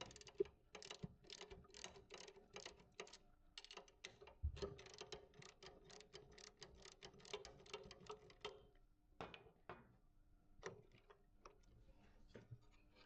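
Faint, rapid clicking of a ratchet tool turning to loosen a bearing's fastening screws, several clicks a second, thinning to a few scattered clicks after about nine seconds.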